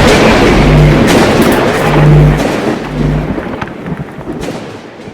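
Loud intro music or sound-effect track: a dense rumbling, noisy bed with heavy hits and a repeated low sustained bass note, fading out over the last two seconds.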